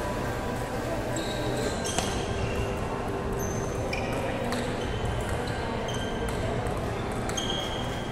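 Table tennis rally: the ball clicks sharply off the paddles and the table several times, at irregular intervals, over a steady background hum.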